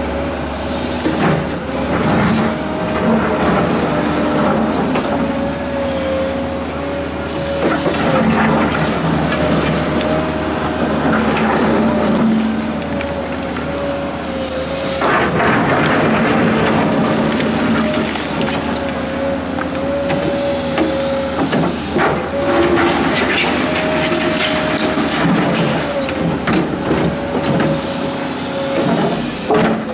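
Komatsu PC230-11 hydraulic excavator working under load: the diesel engine and hydraulic pumps run steadily with a whine that wavers in pitch, while the bucket digs into and scrapes rock and gravel, with knocks of stone at intervals.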